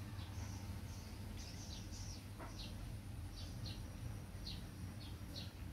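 Small birds chirping in the background: a string of short, high, falling chirps every half second or so, with a lower falling squeak about halfway through, over a steady low hum.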